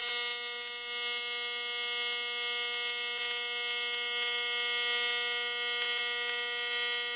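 TIG welding arc on 1/8-inch mild steel, run from a Canaweld MIG Pulse 201 multi-process welder: a steady, even-pitched electric buzz with a hiss above it.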